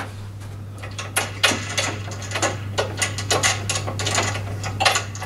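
A bolt, washer and plastic hand wheel being worked off a lawn mower's handle bracket and set down on the table: a run of irregular clicks, rattles and light metallic clinks over a steady low hum.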